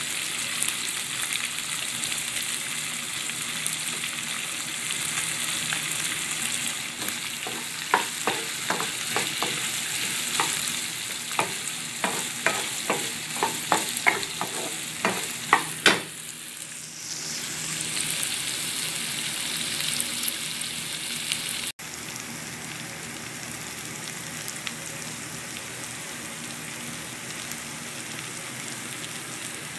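Sliced onions, shrimp and garlic sizzling in hot oil in a non-stick pan as a wooden spoon stirs them, with a run of light knocks of the spoon against the pan from about 7 to 16 seconds in. After a brief cut about two-thirds of the way through, the sizzle goes on more quietly and evenly.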